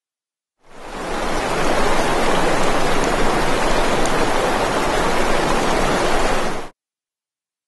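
A steady rushing noise, even and without pitch, swells in over about a second and cuts off abruptly near the end.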